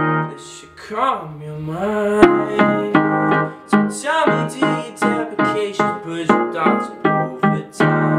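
A man singing to his own electric keyboard accompaniment in a piano sound. A held chord breaks off at the start, then chords are struck one after another under sliding sung notes.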